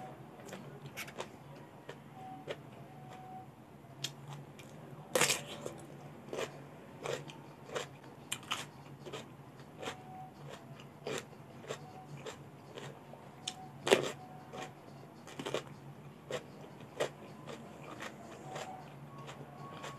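Close-up crunching bites into raw cucumber and wet chewing, a string of irregular crisp crunches with the loudest bites about five and fourteen seconds in.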